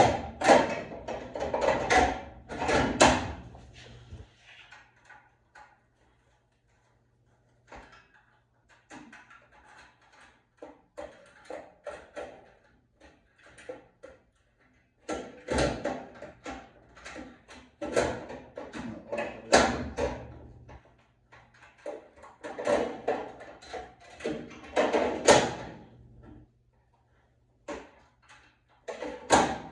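Coin box being fitted into a coin-operated washing machine: bouts of rapid clattering clicks and knocks, with short pauses between them.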